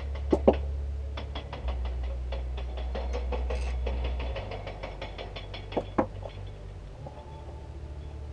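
Isuzu 6VD1 3.2 litre V6 engine running at idle after a timing-belt job: a steady low hum with a regular light ticking of about seven a second. A couple of sharper clicks come near the start and again about six seconds in.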